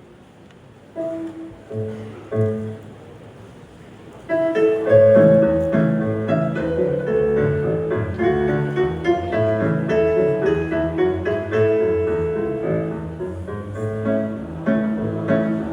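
Keyboard playing a hymn tune, likely the introduction before the singing begins: a few separate notes at first, then fuller chords and melody from about four seconds in.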